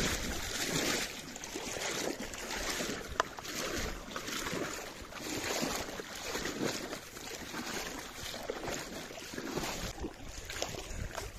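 Small boat being paddled through water: a rhythmic swish of water about once a second, with a single sharp click about three seconds in.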